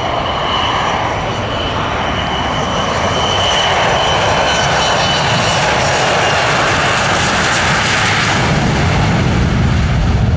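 Airliner engines running loud as the plane passes close, with a high steady whine over a building rush of engine noise. The whine fades about halfway through, and near the end the sound deepens to a low rumble.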